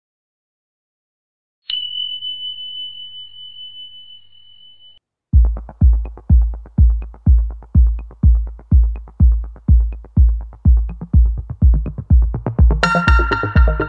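A single high bell-like ding that rings out and fades over about three seconds, then an electronic music track with a steady kick drum beat, about one and a half beats a second. A synth melody joins near the end.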